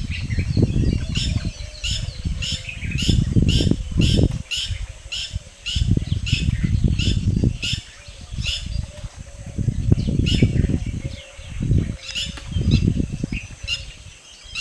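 Gusty low rumble of wind buffeting the microphone, surging and easing every few seconds. Above it a bird repeats a short high chirp two or three times a second, pausing for a few seconds midway.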